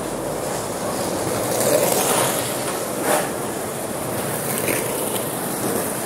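City street ambience: a steady wash of traffic and street noise that swells about two seconds in, with a single sharp knock about three seconds in.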